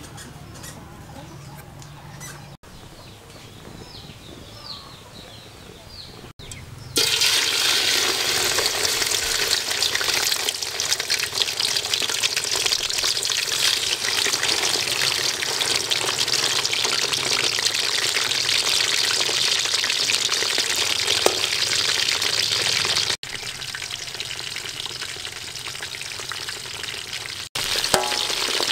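Whole fish deep-frying in hot oil in a wok: a loud, steady sizzle starts suddenly about seven seconds in, after a quieter stretch with a few faint chirps. The sizzle drops somewhat later on and rises again near the end.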